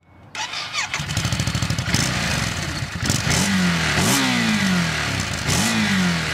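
Ducati DesertX's 937 cc Testastretta V-twin engine running with a rapid firing pulse, then revving up and falling back twice.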